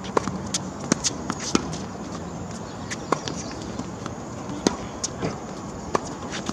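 Tennis balls struck by rackets and bouncing on a hard court during a baseline rally, a series of sharp pops and taps with shoe steps, the loudest hit about two thirds of the way through.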